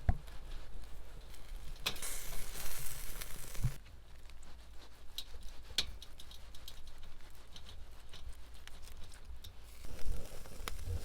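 Crinkling and rustling with scattered light clicks and knocks; a louder stretch of rustling comes about two seconds in and lasts over a second, and it picks up again near the end.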